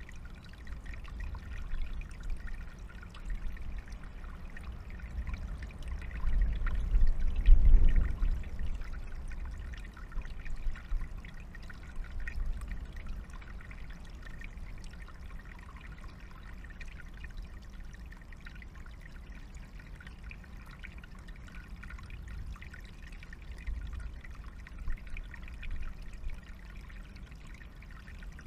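Small forest stream trickling steadily over stones. About six seconds in a low rumble swells for a couple of seconds and is the loudest sound.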